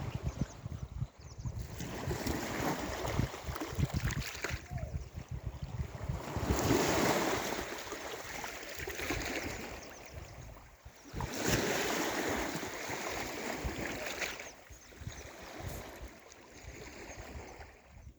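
Sea waves breaking and washing up the shore, rising and falling in about three surges a few seconds long, with wind buffeting the microphone.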